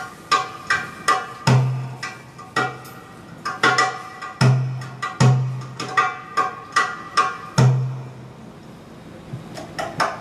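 Improvised hand-drum solo: deep ringing bass strokes, often in pairs, with quick sharp high strokes between them. The playing thins out to lighter taps near the end before the bass strokes return.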